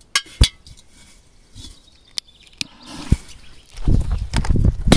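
A few sharp clicks, then hurried footsteps with heavy rumble on the microphone, and a single sharp bang near the end: a P2000 firecracker going off after a very short fuse.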